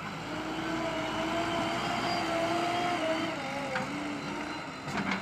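JCB 3DX backhoe loader working, its engine under load with a steady whine that eases off about three and a half seconds in, followed by a few knocks near the end.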